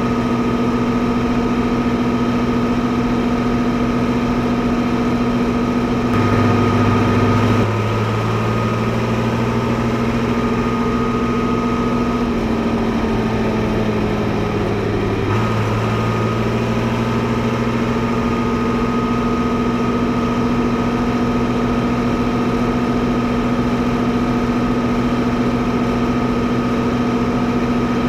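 Fiatagri 115/90 tractor's 5.9-litre six-cylinder FIAT diesel engine running steadily at low revs. About six seconds in the note changes and slowly sags in pitch, then snaps back to the steady note about halfway through.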